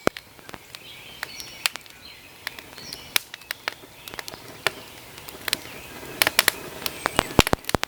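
Irregular sharp crackles and pops of camp cooking over the fire, with birds chirping faintly behind.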